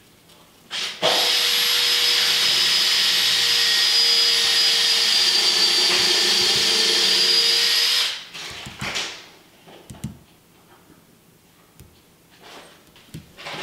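An electric motor, such as a vacuum cleaner or power tool, runs steadily with a high whine over a hum. It starts suddenly about a second in and dies away after about seven seconds.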